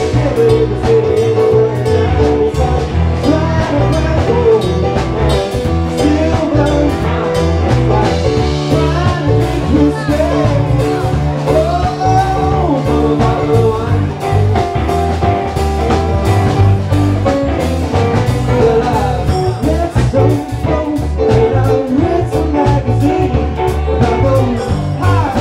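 Live funk-jazz band playing: drum kit, electric guitar and keyboard, with a voice singing over them.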